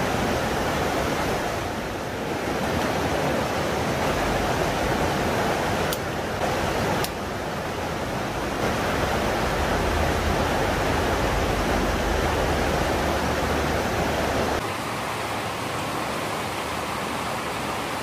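Steady rush of a fast-flowing mountain river running over rocks, with a few sudden shifts in level.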